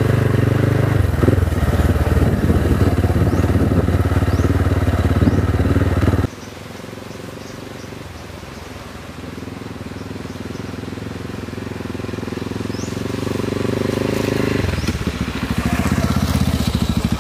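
Motorcycle engine running steadily at close range while riding. About six seconds in it cuts off abruptly to a quieter motorcycle engine sound that grows steadily louder, becoming loud again near the end.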